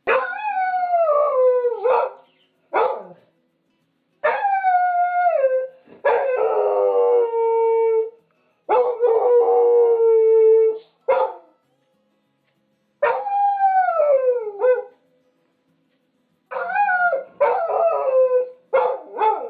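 Miniature pinscher howling: a run of long howls that slide down in pitch, some breaking into a rough, wavering stretch, with a few short yips between them.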